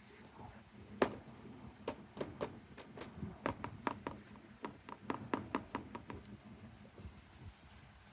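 Hands handling a toy car's packaging: a run of sharp, irregular clicks and taps, about twenty of them, that stops shortly before a faint rustle near the end.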